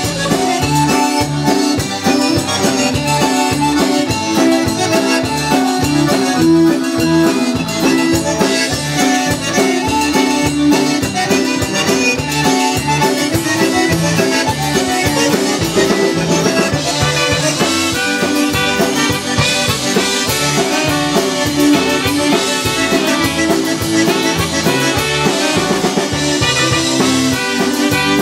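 Live polka band playing, the accordions leading the tune over bass guitar and a drum kit, with trumpet and saxophone.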